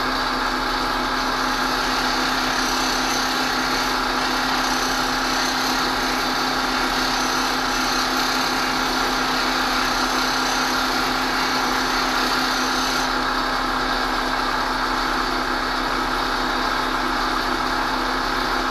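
Bench grinder motor running with a steady hum, while a steel plane iron is ground against the wheel to regrind its bevel, giving a hissing grind. The grinding hiss drops away about two-thirds of the way through as the iron comes off the wheel, and the motor keeps running.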